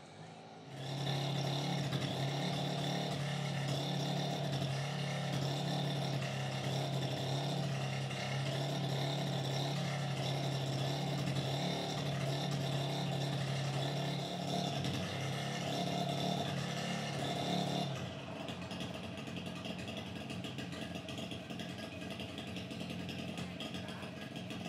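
A motor running steadily at one pitch, which gives way about eighteen seconds in to a quieter, rougher noise.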